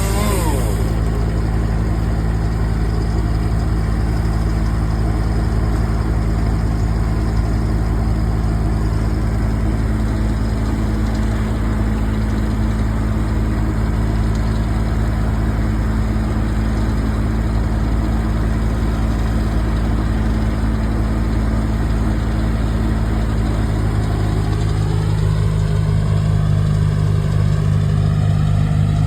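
An engine running steadily, its note changing about 24 seconds in.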